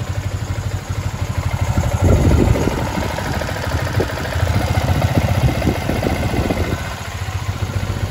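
Freshly rebuilt liquid-cooled motorcycle engine idling with a fast, even pulse, getting louder about two seconds in and again for a couple of seconds in the middle. It is being left running to run in the new piston.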